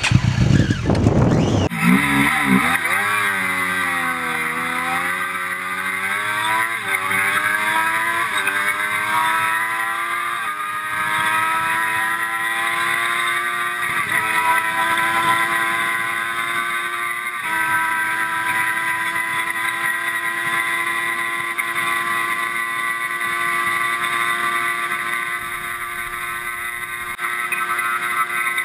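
Triumph Daytona 675's three-cylinder engine at full throttle from a standing start. The revs climb and drop back with five upshifts, each climb slower than the last, then the engine holds a steady high-pitched note, running flat out near its top speed of about 155 mph.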